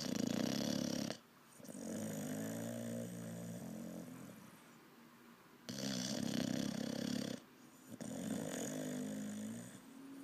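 Olde English Bulldogge puppy snoring: two breaths about six seconds apart, each a short loud rasp followed by a longer, lower buzzing snore that fades away.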